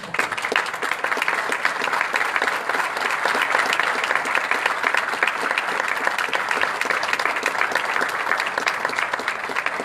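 An audience applauding with dense, steady clapping that thins out near the end.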